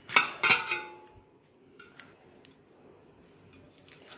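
Hands tearing bread slices into a stainless steel bowl. Two knocks against the bowl with a brief metallic ring in the first second, then faint soft tearing with a few small ticks.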